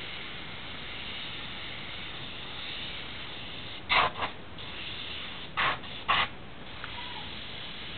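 Airbrush spraying paint: a steady hiss of air, with three short, louder bursts of hiss about four, five and a half and six seconds in.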